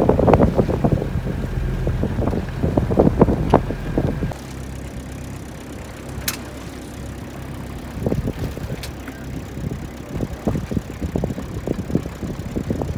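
Wind buffeting the microphone aboard a moving boat, in irregular gusts over a low rush of water and boat noise. About four seconds in the sound drops suddenly to a quieter, steadier rush, with a few gusts still coming through.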